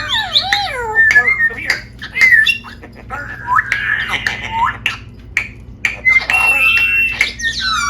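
Pet parrot squawking, whistling and chattering: a busy run of rising and falling calls and held whistles, broken by sharp clicks.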